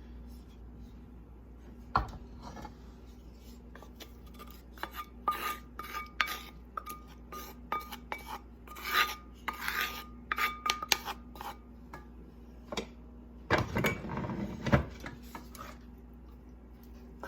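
A utensil scraping and clinking against a pan in a run of short strokes, scooping out sautéed mushrooms and onions, with a knock about two seconds in and a louder burst of scraping near the end.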